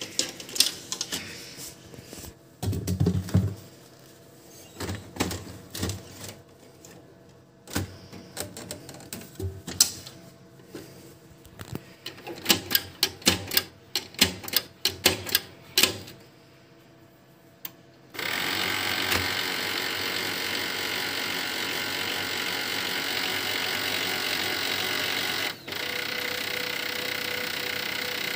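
Plastic clicks and knocks of an HP LaserJet printer's cartridge being seated and its front door being opened and shut repeatedly. Then the printer's mechanism starts and runs steadily, dropping out briefly once near the end.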